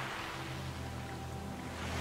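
Ambient relaxation soundtrack: a low, steady drone under a rushing wash of ocean-surf noise that ebbs to a lull, then begins to swell again at the very end.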